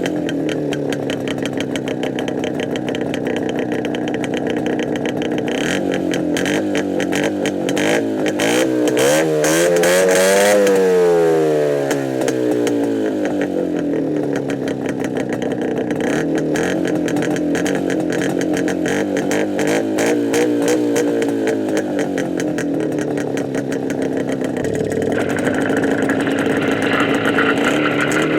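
Izh Jupiter-5 motorcycle's two-stroke twin engine running through a muffler with its baffle tubes removed. It is revved up once to a peak about ten seconds in and let back down, then revved more gently again around twenty seconds.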